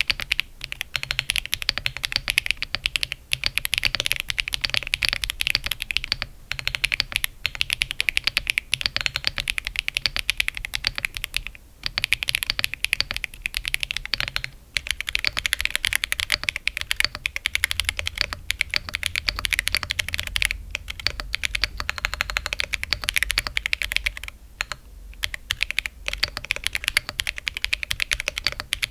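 Continuous typing on a mechanical keyboard with tactile switches, a PC plate, OEM-profile keycaps and no foam inside the case. Akko Cilantro switches are heard first, and after a short pause about halfway through, MMD Princess Tactile v2 switches.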